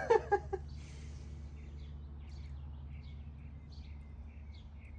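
Small birds chirping in quick, repeated short calls over a steady low background hum.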